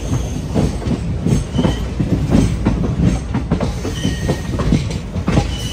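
Passenger train coach rolling into a station: wheels clacking over rail joints over a steady rumble, with a few brief faint squeals from the wheels.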